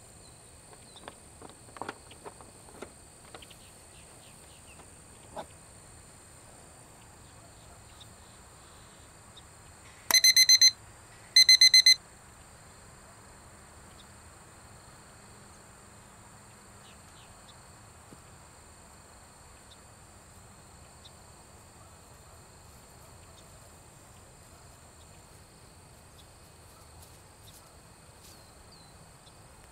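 Two short, loud electronic beeps a little over a second apart, about ten seconds in, over a steady high-pitched insect drone. A few faint knocks in the first few seconds.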